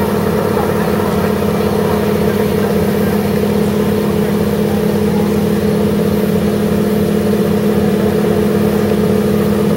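Engine idling: a steady drone with a constant low hum that does not change.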